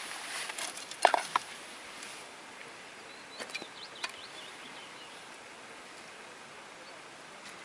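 Clothing rustle and a few sharp clicks, the loudest just after a second in, as an archer stows his binoculars and then nocks an arrow on his recurve bow. Faint bird chirps in the background.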